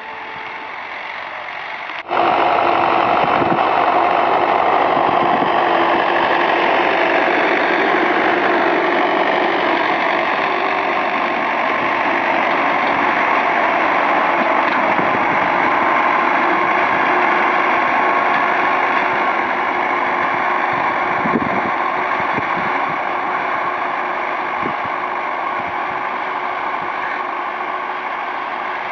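Belarus MTZ-80 tractor's naturally aspirated four-cylinder diesel running steadily under load while ploughing. It jumps suddenly much louder about two seconds in, then fades slowly toward the end.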